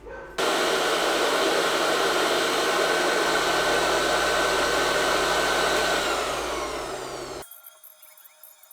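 Electric blower motor running with a loud rush of air and a steady high whine, then switched off about six seconds in, its whine falling as it spins down.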